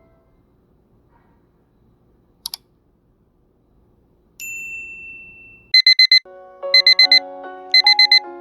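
Electronic alarm clock beeping in quick groups of four, about one group a second, starting about two-thirds of the way in. Before it, a soft double click and a single ringing ding sound over near quiet. Soft piano music comes in with the beeping.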